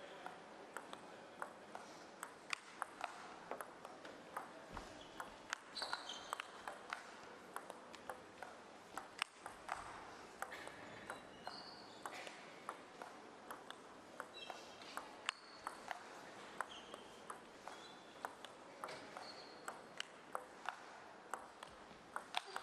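Table tennis ball clicking back and forth between rubber bats and the table in rallies, with a few short squeaks from the players' shoes on the court floor.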